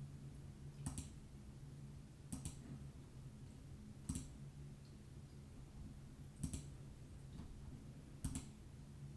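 Computer mouse clicking: single clicks and quick double clicks every second and a half to two seconds, over a low steady hum.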